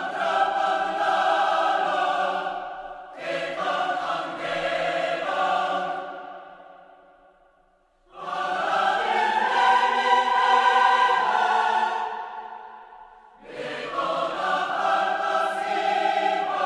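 Choral music: a choir singing long held chords in phrases that swell and fade away, a new phrase starting about every four to five seconds.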